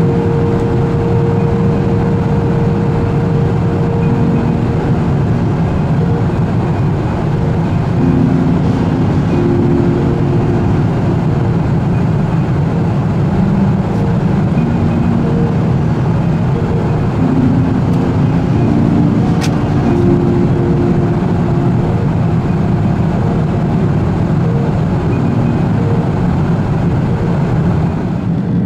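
Steady cabin roar of a Boeing 747-400 in cruise, heard inside the economy cabin: engine and airflow noise, deep and unbroken.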